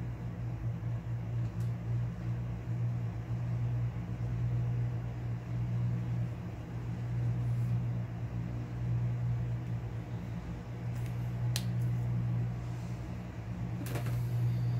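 A steady low machine hum. A sharp click comes a little past halfway, and a brief rustle near the end.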